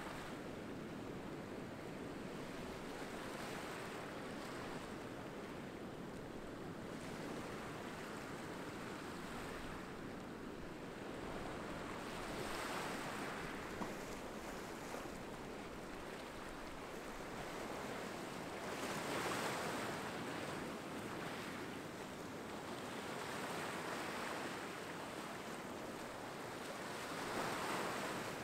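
Small ocean waves breaking and washing up a sandy beach among rocks: a steady wash of surf that swells into louder surges every several seconds.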